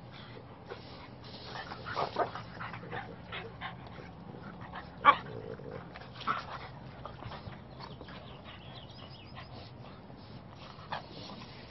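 Dogs barking and yipping in short, scattered bursts, with one sharp loud bark about five seconds in.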